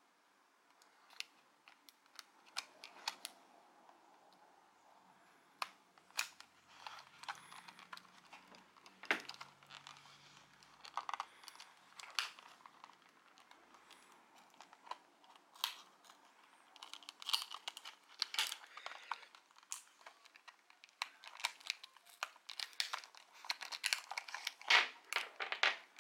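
Small scissors snipping through a stiff clear plastic blister pack, and the plastic crinkling and crackling as it is worked open and handled. The sharp clicks and crackles are scattered at first and come thicker in the second half.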